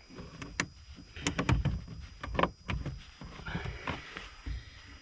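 Plastic push-in retainer clips and trim being handled and pressed into place, giving a series of sharp clicks and knocks.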